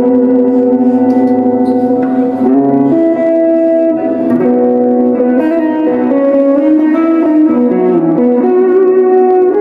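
Electric guitar, a Telecaster build played through a Boss ME-80 multi-effects with distortion and ambience effects, playing a sustained lead melody. One long held note rings for about two and a half seconds, then a line of changing notes follows.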